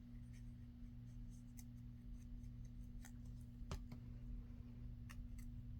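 Faint scattered clicks and taps of paper being handled and pressed down on a journal page, over a steady low hum; the clearest tap comes a little past halfway.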